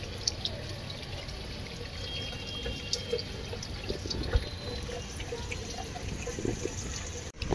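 Water trickling, with scattered small drips and clicks over it.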